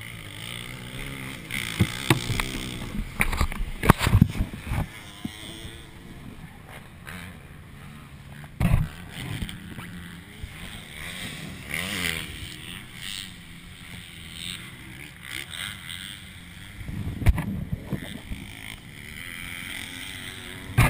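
ATV (quad) engine idling nearby, revving up and down in pitch a few times, with several sharp knocks against the camera.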